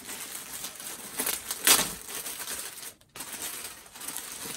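Clear plastic packaging bag crinkling and rustling as a folded T-shirt is handled and unwrapped, with a sharp, louder crinkle about a second and a half in.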